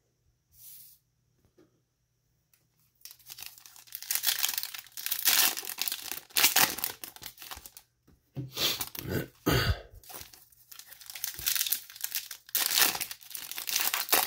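Foil trading-card pack wrappers crinkling and tearing open as Bowman Chrome packs are ripped by hand. It is nearly quiet for the first few seconds, with one short rustle under a second in. The crinkling and tearing then run dense, with a brief pause about two-thirds of the way through.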